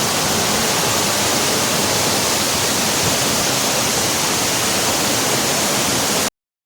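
Steady rush of a waterfall, loud and even, heard close by. It breaks off abruptly near the end.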